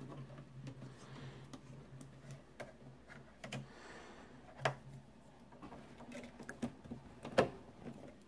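Small clicks and knocks of plastic plugs and cables being handled and pushed into the back of a digital converter box, with two louder knocks about halfway and near the end. A low hum runs under the first half.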